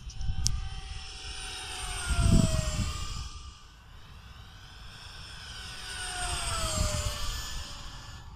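Radio-controlled Yak-130 model jet making two fast passes. Each time its high whine swells and drops in pitch as it goes by, the first about two seconds in and the second near seven seconds.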